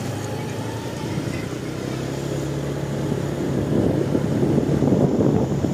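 Steady low drone of engines, with a rougher rumble that grows louder about three and a half seconds in.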